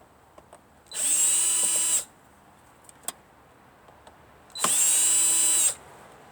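Electric drill-driver backing out small screws from scrap electronics: two short runs of about a second each, each winding up and then down, with light clicks of handling between them.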